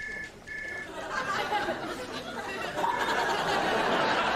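Two short electronic beeps, then a crowd of people chattering and laughing, growing louder.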